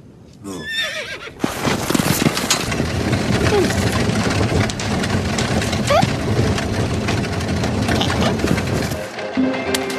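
Wooden cart rolling, its spoked wheels giving a dense, loud rattle and clatter that starts about a second and a half in and eases off near the end, with a couple of short rising squeaks.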